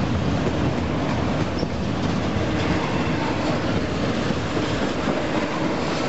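Double-stack container train's well cars rolling past close by: a steady, loud rolling noise of steel wheels on rail.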